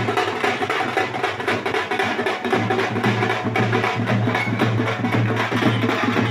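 Procession drums beaten in a fast, dense, driving rhythm, with a steady low drone under them that grows stronger about halfway through.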